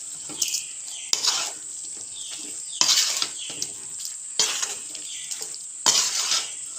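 Steel spoon stirring and scraping chicken and spice powders around a metal kadai, in strokes about every second or so, over a steady sizzle of frying.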